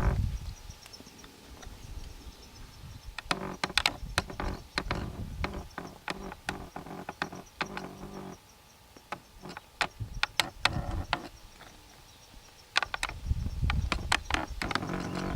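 A camera tripod creaking and squeaking as its joints are worked: bouts of sharp clicks and short pitched creaks, with quieter pauses between.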